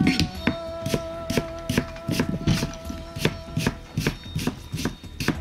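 Kitchen knife slicing peeled daikon radish into quarter-rounds and striking the cutting board, an even chop about two and a half times a second. Background music with held tones runs underneath.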